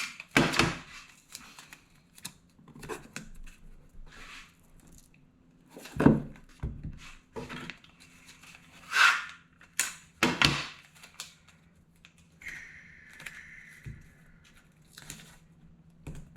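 Adhesive tape being pulled and torn, with crinkling and a few sharp knocks as small wooden pieces are handled, over a low steady hum.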